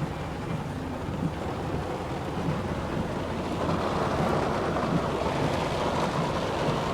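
A truck's engine running low under a steady rush of heavy rain and water, the rush growing louder about three and a half seconds in.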